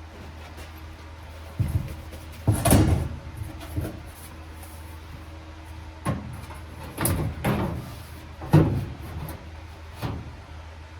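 A series of irregular knocks and bangs, about eight of them, with the loudest about a quarter of the way in and near the end, over a steady low hum.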